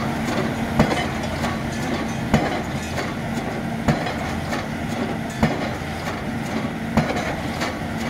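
A single-acting 9-ton hydraulic pile hammer striking a pile about every one and a half seconds, five blows in all. The piling rig's engine hums steadily underneath.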